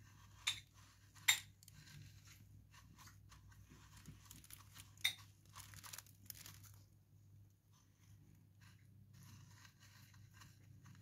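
Desiccated coconut rustling and crackling faintly as a soft, milk-soaked bread roll is pressed and rolled in it by hand, with three sharper clicks in the first five seconds. A steady low hum runs underneath.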